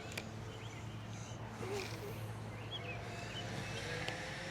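Quiet outdoor ambience with a steady low hum and a few faint bird chirps about two seconds in.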